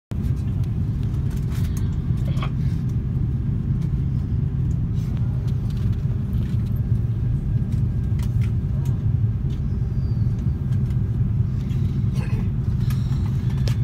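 Steady low rumble of airliner cabin noise after landing: engine and airflow noise heard from inside the cabin, with a few faint clicks of the phone being handled.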